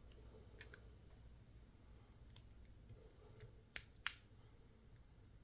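A few faint, sharp clicks of small metal tools and lock parts being handled as a lock is taken apart, with the two loudest clicks about four seconds in.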